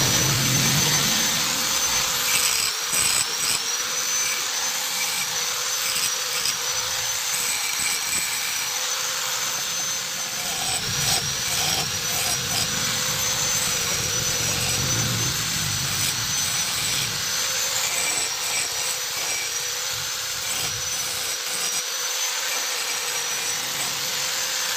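Electric angle grinder running with a steady high whine, grinding the fresh weld on an exhaust pipe smooth. The pitch dips briefly every few seconds as the disc bites into the metal.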